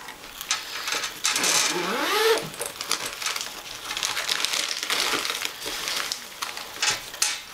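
A zipper on a padded fabric tripod bag being pulled open, with rustling of the bag's fabric and crinkling of the plastic wrapping around the tripod as it is handled.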